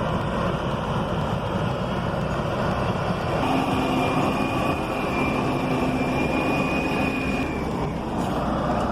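Heavy logging truck's engine running steadily under load, with a faint steady whine joining for about four seconds in the middle.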